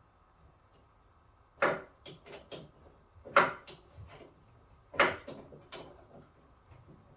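Three sharp knocks about a second and a half apart, each followed by two or three lighter taps, like a hard object being struck or set down.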